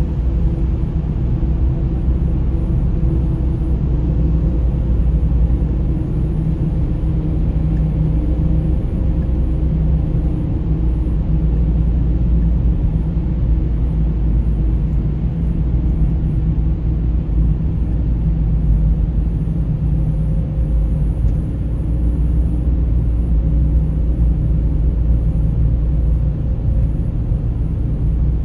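Steady low rumble of a car driving through a road tunnel: tyre and engine noise with the rumble of surrounding traffic.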